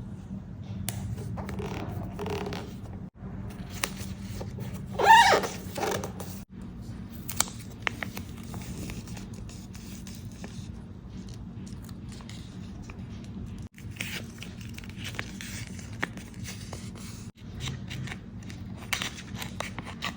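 Close-up paper-craft handling sounds: rustling, scraping and short tearing of paper or tape, with scattered small clicks over a low steady hum. The loudest is a brief squeaky tear about five seconds in.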